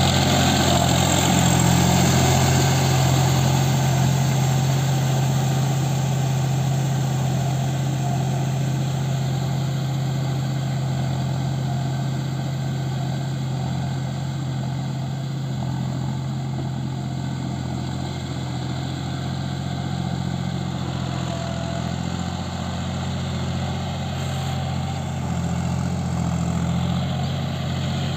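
John Deere tractor's diesel engine running steadily while it pulls a rotary tiller through flooded paddy mud. It is loudest at first, eases as the tractor moves off, and builds a little again near the end.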